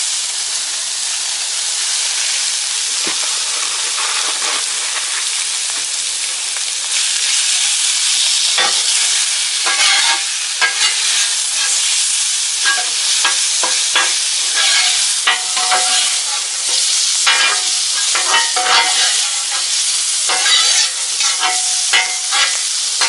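Shrimp frying on a hot Blackstone flat-top griddle, a loud, steady sizzle. Several seconds in it gets louder, and a metal spatula begins scraping and clicking on the steel top as the shrimp are stirred and turned.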